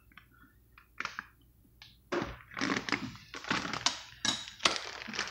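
Faint ticks at first, then from about two seconds in a run of sharp crackling and rustling noises, like plastic being handled.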